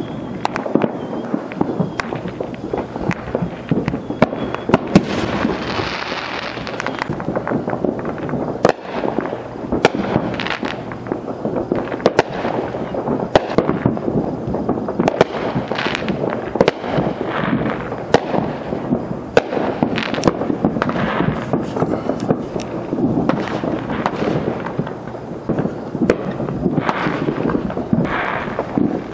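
Consumer fireworks and firecrackers going off all around in a near-continuous crackle, with many sharp pops and bangs and frequent hissing bursts.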